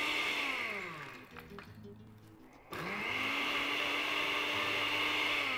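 Countertop blender motor running steadily, then switched off and winding down with a falling pitch. After a short lull it starts again about two and a half seconds in with a rising whine, runs steadily, and begins winding down again at the very end.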